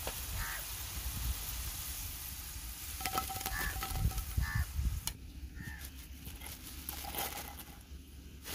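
Cut potato fries sizzling in a pan of hot oil as they are lifted out with a wire skimmer after their first, par-cooking fry. The sizzling stops about five seconds in, leaving a few light clicks as the fries are tipped into a clay bowl.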